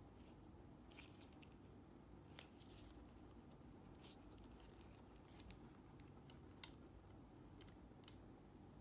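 Near silence with faint handling sounds: the plastic earcups of Sony MDR-Q38LW clip-on headphones give a few soft clicks and rubs as they are turned over in the hands and set down on a wooden table, over a low steady room hum.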